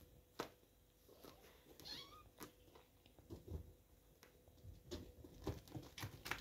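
A kitten gives one short, faint meow about two seconds in, falling in pitch. Light taps and knocks from the kittens playing come more often near the end.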